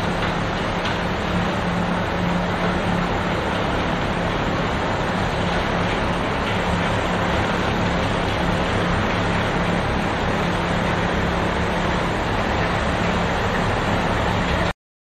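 A loader-mounted snowblower and the dump truck pacing it running steadily, with a constant low diesel drone under the rush of snow thrown from the blower's chute. The sound cuts off suddenly near the end.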